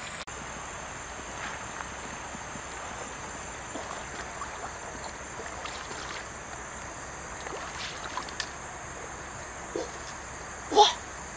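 Shallow stream water trickling and sloshing as a person wades through it, with a steady high whine over the top. There are scattered small knocks and one brief louder sound near the end.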